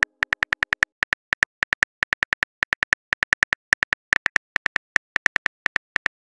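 Phone on-screen keyboard key-click sounds, a fast run of identical short taps, about six to eight a second in uneven bursts with brief pauses, as a text message is typed out letter by letter.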